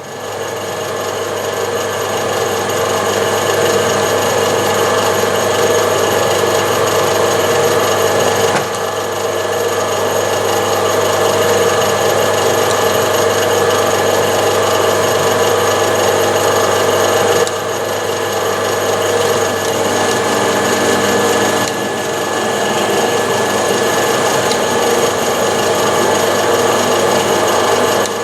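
Metal lathe running at about 250 rpm while boring a hole through a block held offset in the chuck: a steady machine hum and whine with cutting noise, shifting slightly in level a few times.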